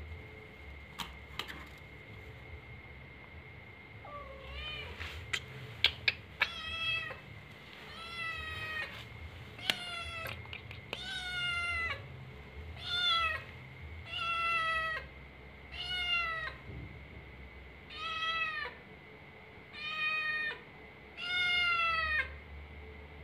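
Young calico cat meowing over and over at a closed door, asking to be let in: about a dozen calls, each under a second long, coming every second or two from about four seconds in. A few sharp clicks come before the meowing starts.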